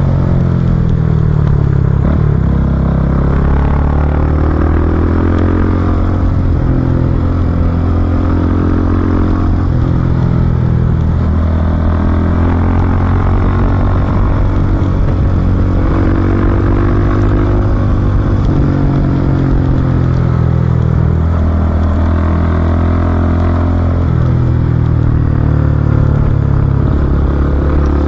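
Yamaha YBR 250's single-cylinder engine running under way on a motorcycle ride. Its pitch rises and falls again and again as the throttle opens and closes and the gears change through the bends.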